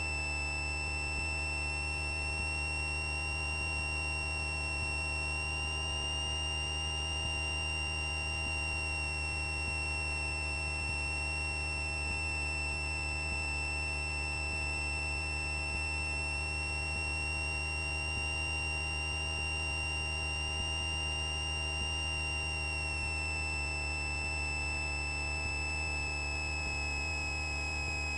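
Steady drone of a light training aircraft in flight, heard through the headset intercom. A high, even whine sits over it and drops slightly in pitch about 23 seconds in.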